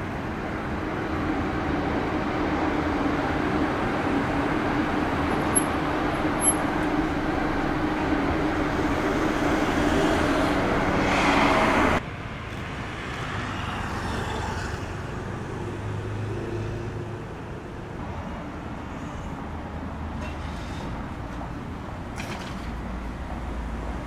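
Road traffic: vehicle engines running with tyre noise, a steady hum that builds louder and then cuts off suddenly about halfway through, followed by quieter passing traffic.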